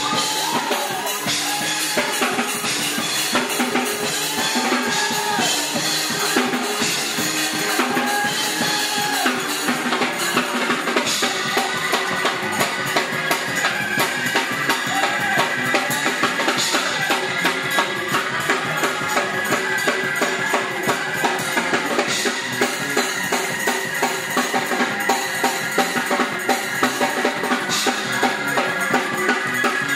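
Live church band playing fast, driving music: a drum kit keeps a quick steady beat under an electric bass guitar and other instruments.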